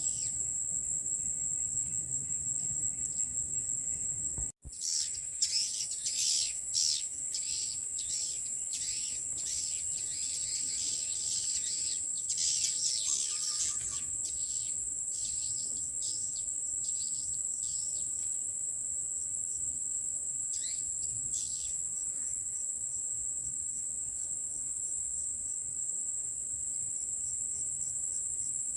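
Many swiftlets giving short, quick twittering chirps, dense in the first half and thinning out later, over a steady high-pitched drone of crickets. The sound cuts out for a moment about five seconds in.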